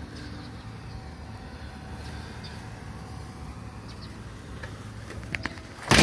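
Low, steady rumble of a car driving along a snow-covered road. A few clicks follow a little after five seconds, then a sharp knock near the end as the phone is handled and lowered.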